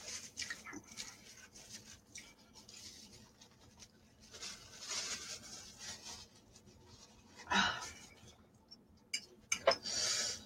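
A person eating Korean spicy noodles: quiet chewing and mouth sounds with heavy breaths from the heat, a louder breath or slurp a little past halfway, and a few clicks with a short slurp near the end.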